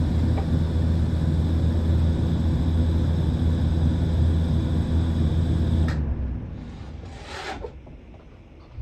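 Welder running on a valve seat while welding points onto it: a steady hum with a hiss over it. About six seconds in the hiss cuts off sharply and the hum dies away over a second or so.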